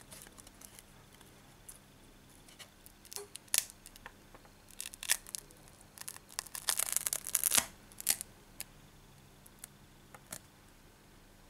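Small clicks and taps of a replacement LCD panel being handled and pressed into a Sony Xperia E4's plastic frame, with a short dense run of scraping about seven seconds in.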